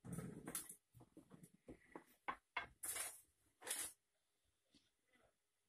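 Long wooden rolling pin working dough on a floured wooden table: a faint run of short rubs, rumbles and soft knocks as the pin rolls and is handled.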